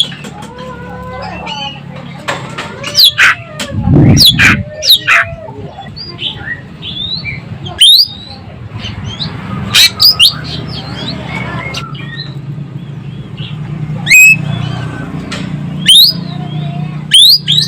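Ekek keling bird singing actively, with loud, sharp rising whistles and chirps in quick clusters mixed with softer twittering. A steady low hum runs underneath.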